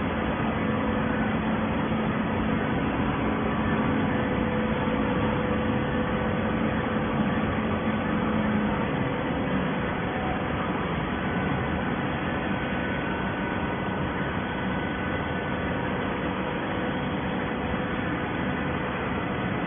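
Hydraulic baler for PET bottles running: a steady mechanical hum and hiss with faint constant tones, one lower tone dropping away about nine seconds in.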